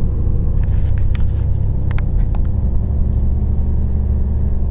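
Car running, a steady low engine and road rumble heard inside the cabin, with a few light clicks about one and two seconds in.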